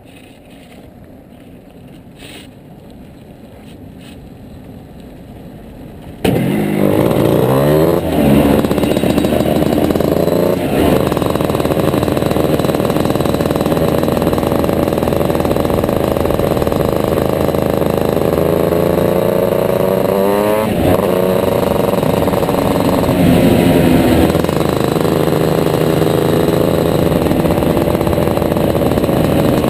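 Shifter kart's two-stroke engine under way on track, heard from on board. It is faint for about the first six seconds, then suddenly much louder, its pitch climbing as it accelerates and dropping sharply at gear changes and braking.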